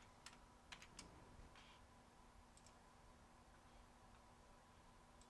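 Near silence over a faint steady hum, with a few faint clicks of computer keyboard keys in the first three seconds as a line of code is finished.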